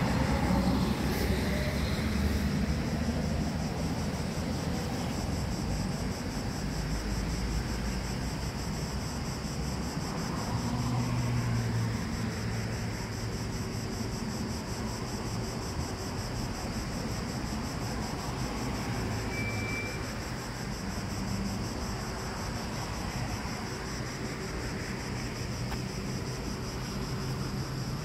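Street traffic: a coach bus's engine rumbles past at the start, the loudest moment, followed by a steady wash of passing cars, with another vehicle swelling past about ten seconds in.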